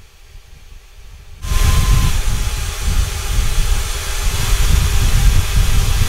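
Sylph Turbo hair dryer switched on about a second and a half in, then running with a loud, steady rush of air and a faint high whine.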